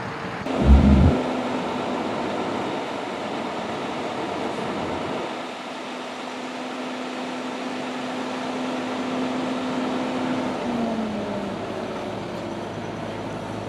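A heavy truck engine running with a steady drone and hiss, its pitch sliding down a little near the end. A loud low thump about a second in.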